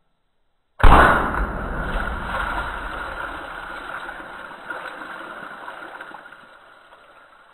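A sudden loud burst about a second in as a .25 air rifle pellet pops a row of water balloons, then water splashing and pouring off a wooden plank, slowly fading away.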